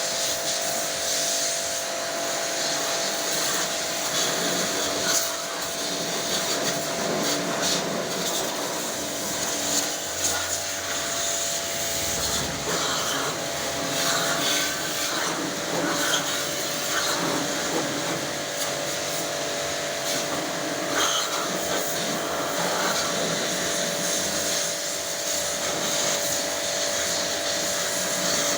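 Motorised pressure cleaning machine for AC servicing running continuously, a steady motor whine under the hiss of its jet.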